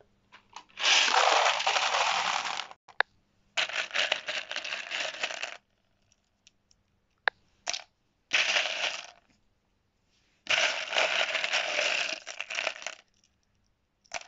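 Plastic toy gems poured into a plastic tub, clattering in four long rattling bursts with single clicks between them.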